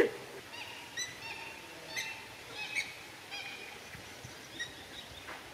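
Birds calling: a string of short chirps, about eight spread over a few seconds, some in quick pairs.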